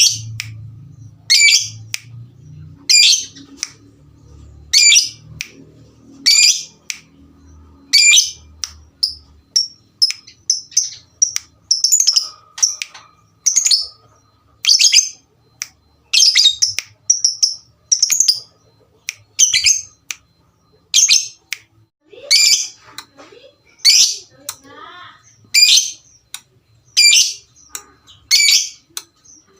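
Lovebirds calling: sharp, shrill squeaks repeated about every second and a half, turning into quicker, shorter chirps about a third of the way through, with a brief lower, rapid warbling run near the end.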